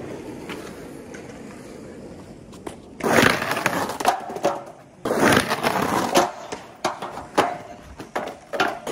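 Skateboard wheels rolling on smooth concrete, then the trucks scraping along a low curb in slappy grinds. The scraping comes in two loud stretches, about three seconds in and about five seconds in, with sharp clacks of the board.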